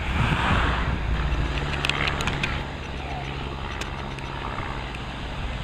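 Small aircraft flying overhead, its engine a steady drone that eases off slightly about two and a half seconds in.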